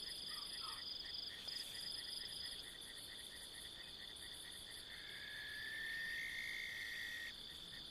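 Night chorus of crickets trilling steadily, with a fast pulsed chirping beneath it. From about five seconds in, a lower steady trill joins for a couple of seconds.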